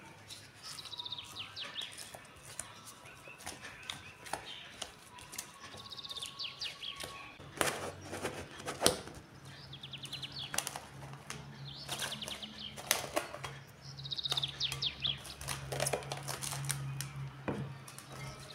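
Wooden spoon knocking and scraping in a glass bowl of sticky dough, then plastic cling film crinkling and rustling as it is stretched over the bowl. A songbird sings a short falling trill about every four to five seconds.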